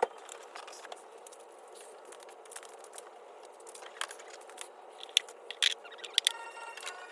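Faint scraping and handling noises with a few sharp clicks a little past halfway, from hands and tools working on a car bumper and its fittings.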